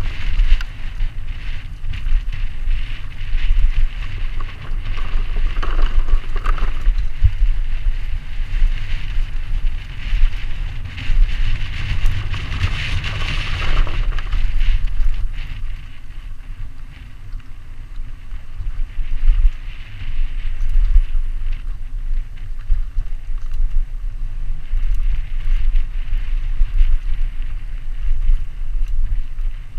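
Wind buffeting the microphone of a camera on a downhill mountain biker's helmet, over the rattle and tyre noise of the bike running fast down a dirt trail.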